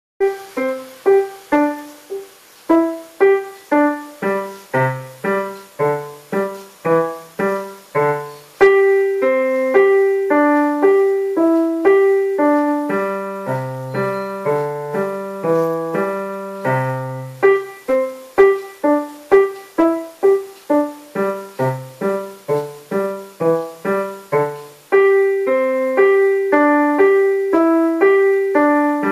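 A child playing a simple beginner piece on the piano with both hands, single notes at a steady pace of about two a second over a low left-hand part. The playing gets louder about nine seconds in and again near the end.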